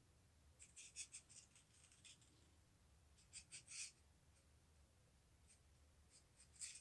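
Faint crisp clicking and scratching of glass bugle beads and thin craft wire being pulled and twisted between the fingers, in three short bursts: about half a second to two seconds in, around three and a half seconds, and near the end.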